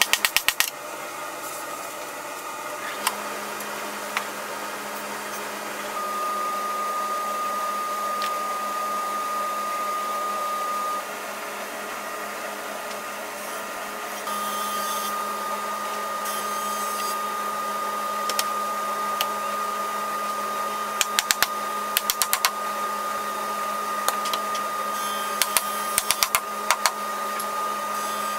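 A steady whirring hum with a thin high whine, which drops out for a few seconds about halfway through. Over it come scattered sharp clicks and knocks, in a cluster near the end, as pipe clamps are slid and set on the wooden table base.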